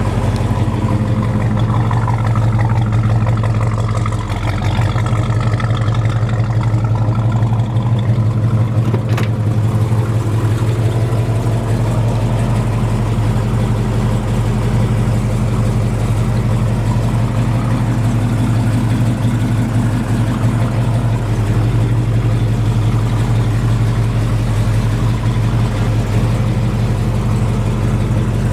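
Big-block 396 V8 of a 1968 Chevelle SS, bored .030 over with a mild cam, idling steadily through its new exhaust. There is one brief click about nine seconds in.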